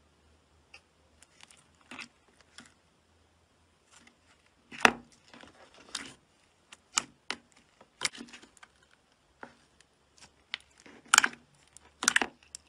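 Glossy slime in a plastic tub being stretched, poked and pressed by fingers, giving irregular wet clicks and pops, loudest about five seconds in and twice near the end.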